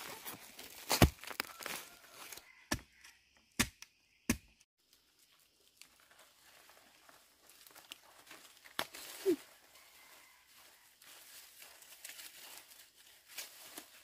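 Digging out a bamboo shoot: four sharp strikes into the shoot's base and the soil in the first few seconds, then quieter rustling and tearing of dry leaves and papery bamboo sheaths as the shoot is handled.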